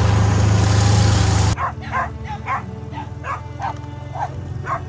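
Side-by-side utility vehicle driving, its engine and the wind running loud and steady for about a second and a half, then cutting off suddenly. After that a dog yaps over and over, about two barks a second.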